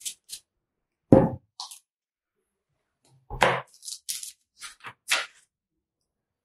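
Short crackles and rustles of hair being handled by fingers close to the microphone, with two louder knocks, about one second and three and a half seconds in.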